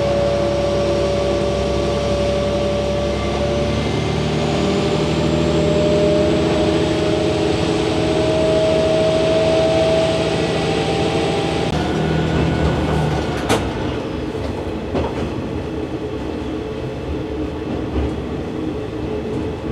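KiHa 120 diesel railcar running up a mountain grade, its engine and wheels on the rails heard from inside the car. The engine note rises slowly under load, then eases off about twelve seconds in, with a single click soon after.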